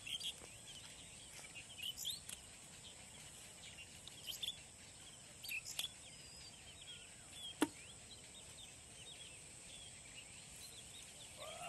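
Faint open-air ambience: scattered small bird chirps over a steady high hiss, with a few sharp clicks, the loudest about seven and a half seconds in.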